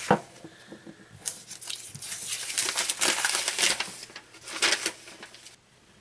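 Sheets of copy paper rustling and crinkling as they are handled, in irregular bursts for about four seconds, after a sharp click at the very start.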